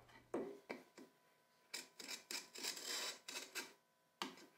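Marking gauge scratching a line into a wooden board: a series of short, faint scraping strokes as the gauge's cutter is drawn along the faces and edges.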